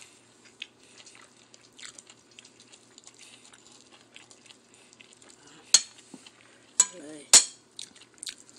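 Metal spoon clinking and scraping against a ceramic plate as fried fish is picked apart, with small scattered taps and three sharp clinks in the second half, the loudest about seven seconds in.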